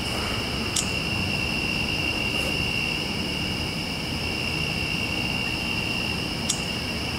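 Crickets trilling steadily in an unbroken high chorus over a low background rumble, with two faint clicks, one about a second in and one near the end.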